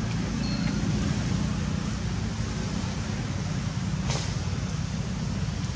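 A steady low engine rumble, with a sharp click about four seconds in.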